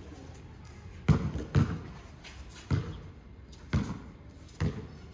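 Basketball being dribbled on a concrete court: five sharp bounces, the first two about half a second apart, then roughly one a second.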